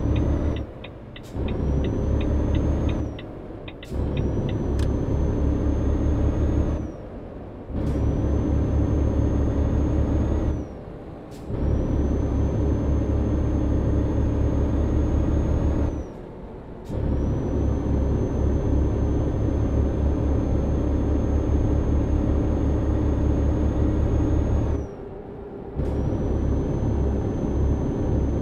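Road vehicle engine pulling up through the gears. The sound drops away briefly six times, once at each gear change, and the pauses come further apart as speed builds. A faint high whine rises slightly within each gear and falls at each change.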